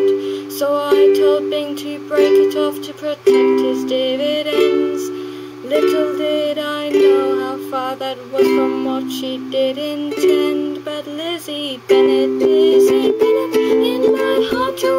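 Stagg ukulele strummed in steady chords, with a woman singing a melody over it.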